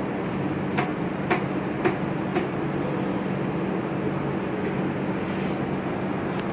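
Hydraulic hose crimping machine running steadily while it clamps a fitting onto a hose, with four sharp clicks about half a second apart in the first couple of seconds.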